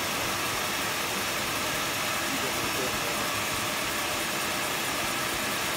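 CNC router spindle with a 1/4-inch compression bit milling a clearance pocket in PVC sheet: a steady hiss-and-whir of the spinning spindle and the cut, making a lot of noise.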